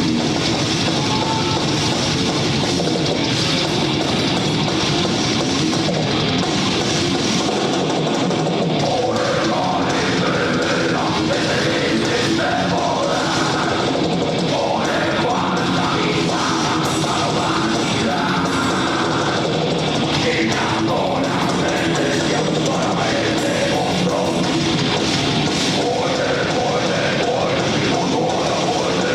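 Heavy metal band playing live: distorted guitars and drum kit at a constant loud level, with vocals over the music from about nine seconds in.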